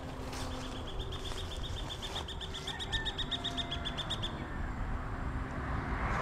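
A bird gives a rapid trill of evenly spaced high notes, about seven a second, lasting about four seconds, over a low steady rumble. Near the end a passing vehicle's noise begins to rise.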